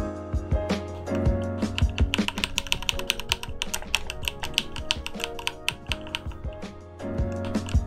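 Rapid, irregular clicking and typing on a computer keyboard, over background music.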